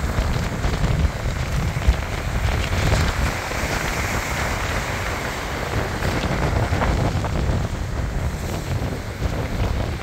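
Stormy sea surf breaking and washing over a pebble beach in a steady hiss, with strong wind buffeting the microphone in a low, gusty rumble.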